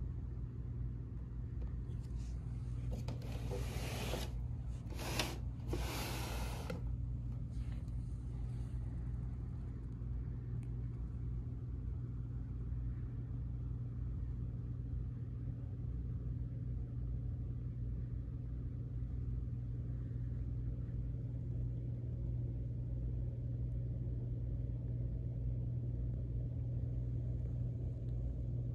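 Steady low hum, with several short bursts of rustling hiss between about two and seven seconds in.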